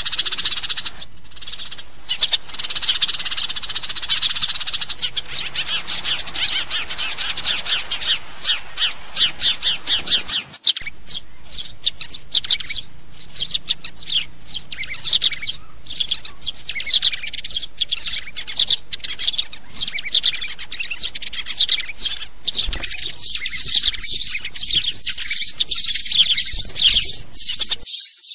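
House sparrows chirping, a fast, dense run of short chirps with barely a gap. The background changes abruptly about ten seconds in and again a few seconds before the end, where the chirping turns brighter and more spaced.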